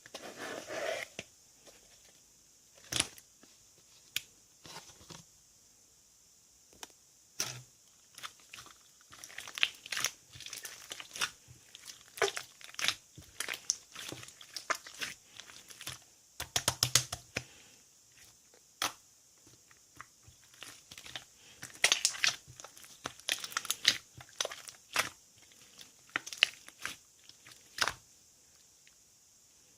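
Slime being squished and stretched by hand, giving irregular sharp pops and clicks, some in quick clusters, with a crinkly sound.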